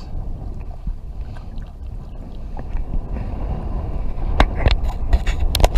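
Low rumbling wind and water noise on a kayak angler's camera microphone, with several sharp knocks and clicks in the last second and a half.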